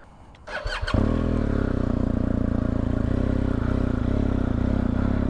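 BMW R1250GS boxer-twin motorcycle engine running steadily at an even pace, coming in suddenly about a second in.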